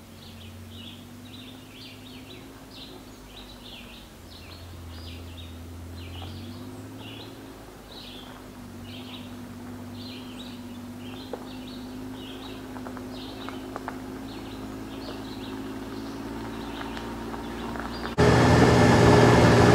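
Birds chirping over and over while a Kawasaki Mule Pro FXT side-by-side's three-cylinder engine hums in the distance, slowly growing louder as the vehicle approaches. Near the end it cuts suddenly to much louder engine noise from on board the vehicle.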